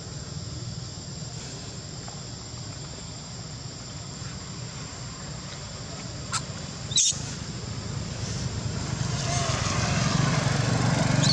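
Two brief high-pitched squeals from a young long-tailed macaque, about six and seven seconds in, over a steady high insect drone.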